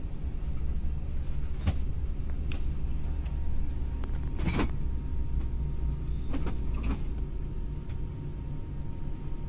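Inside a moving bus: the engine and road noise make a steady low drone, broken by a few short rattles or knocks.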